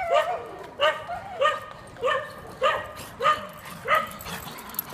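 Small dog barking repeatedly: about seven barks at an even pace, a little under two a second, stopping near the end.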